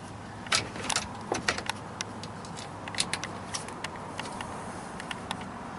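Scattered, irregular small clicks and taps of hand work on a steering column: T20 Torx screws being started loosely to hold a new multifunction switch in place. A steady low hum runs underneath.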